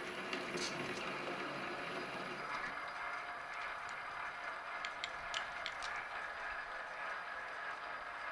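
Import metal lathe running during thread cutting: a steady mechanical whir from the spindle and gear train, with a few light clicks about five to six seconds in.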